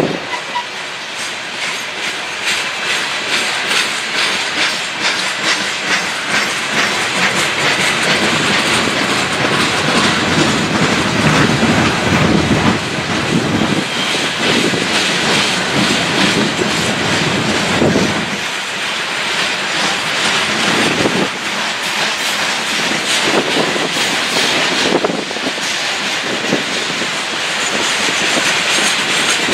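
Loaded coal hopper cars of a freight train rolling past, their steel wheels clattering over the rail joints with a constant rumble and a dense run of clicks and knocks.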